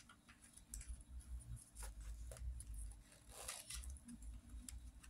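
Faint handling noise from a softbox flash diffuser and shoe-mount flash being fitted together: a few scattered soft clicks and a brief rustle about three and a half seconds in.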